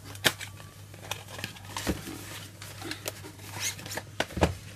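Cardboard charger packaging being opened and handled: the outer box flap pulled open and the white inner box slid out and set down, with scraping rustles, a sharp click about a quarter second in and dull knocks near two seconds and near the end.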